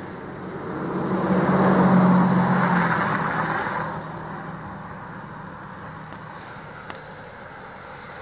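A car driving past on a snow-covered street: tyre noise and engine hum swell, peak about two seconds in, and fade away by about four seconds, leaving a faint steady background hiss.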